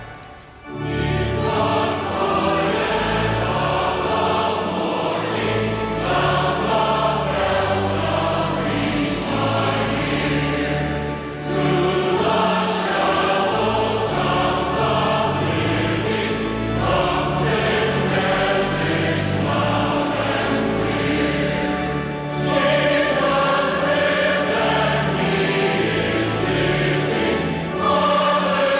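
Choir singing with full instrumental accompaniment over held bass notes; the music swells in again about a second in after a brief dip.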